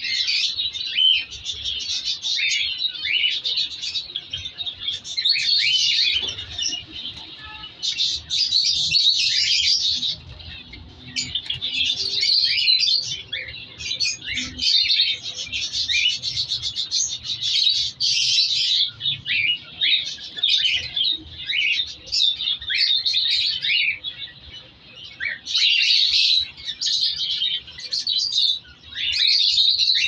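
A flock of caged cockatiels chirping and chattering, many short calls overlapping, in bursts with brief lulls.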